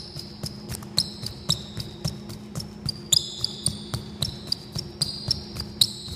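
Athletic shoes landing on a hardwood gym floor in quick two-footed line jumps over and back, about two thuds a second with lighter ones between, and high sneaker squeaks on the floor.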